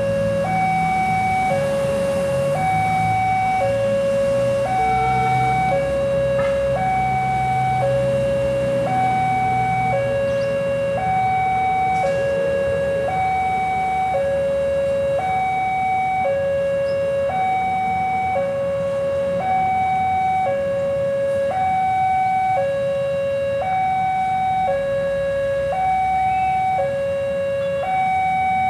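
Railway level-crossing warning alarm sounding a steady electronic two-tone hi-lo signal, each tone lasting about a second, alternating without pause as the train approaches.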